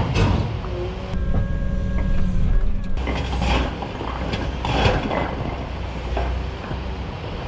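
Excavator's diesel engine running under load, with several loud clanks and scrapes of metal against hard material and a thin whine about a second in.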